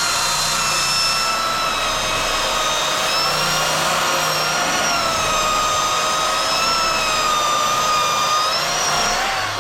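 Handheld power tool spinning a wire wheel against seam sealer on sheet metal, running steadily at high speed with a high whine that sags slightly in pitch as it is pressed into the work, then winding down at the very end.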